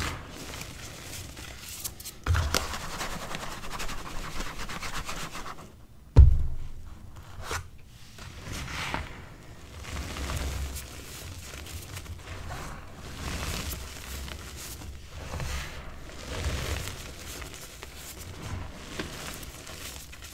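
Hands squeezing and crushing pressed gym chalk reforms into loose chalk powder: soft, powdery crunching, crumbling and rubbing, with a louder stretch of crunching a couple of seconds in. A single thump about six seconds in is the loudest sound.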